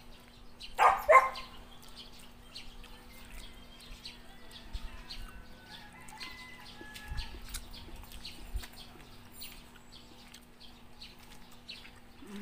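Outdoor ambience while people eat by hand: faint scattered clicks of eating and handling food over a steady low hum, with a loud short double call about a second in.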